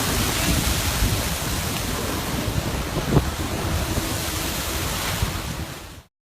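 A steady roar with wind buffeting the microphone and a few low thumps, one sharper about three seconds in. It cuts off suddenly near the end.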